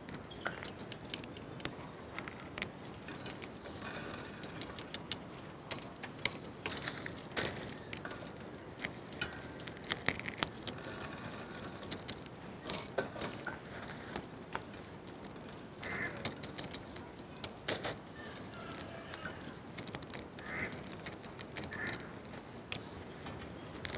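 Dried red chillies being snapped at the stem and broken open by hand, an irregular scatter of dry, crisp crackles and clicks. A few short bird calls sound in the background near the end.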